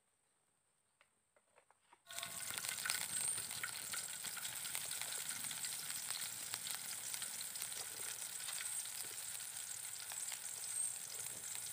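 Near silence with a few faint ticks, then about two seconds in a steady sizzle starts abruptly: chopped aromatics frying in oil in a metal pan over a wood fire.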